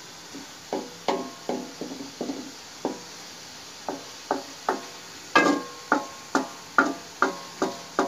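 Wooden spoon knocking against the side of an aluminium karahi while stirring thick masala, each knock leaving the pan briefly ringing. The knocks come unevenly at first, then settle into a steady beat of about two a second from just past the middle.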